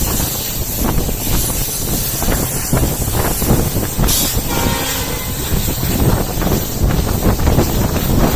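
Passenger train behind an EMD WDP4D diesel locomotive running on the line: a steady, loud rumble of wheels and motion with irregular knocks from the track, and a brief hiss about halfway through.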